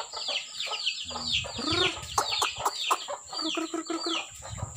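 Free-range village chickens: chicks peeping in quick, high, falling chirps, with an adult hen clucking underneath.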